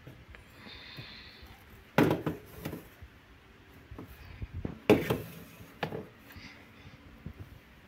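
Clear plastic airtight food storage canisters being set down and pushed into place on a pantry shelf: hollow knocks, the two loudest about two and five seconds in, with lighter knocks between.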